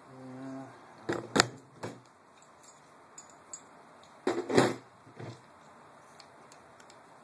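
Tools and small metal parts clinking and clattering as the pistol grip is worked off an airsoft rifle's lower receiver: a few sharp clicks about a second in, and a louder clatter about four seconds in.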